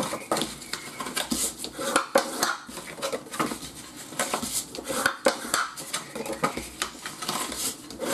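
Bone folder scraped firmly along the score lines of a sheet of designer paper to crease the folds, in a run of quick irregular strokes with paper rustling and light knocks as the sheet is handled and turned.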